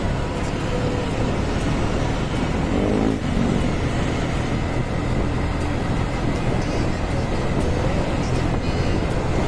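Steady rumble of a vehicle driving on a road among traffic, with engine and tyre noise. A brief rising tone comes about three seconds in.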